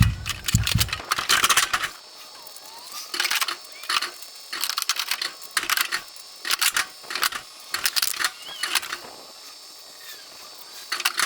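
Irregular clicks, rattles and rustles from things being handled and shifted about, coming in uneven clusters.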